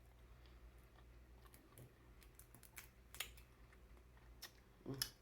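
Faint, scattered clicks and ticks of crab shell being picked apart by hand to get the meat out.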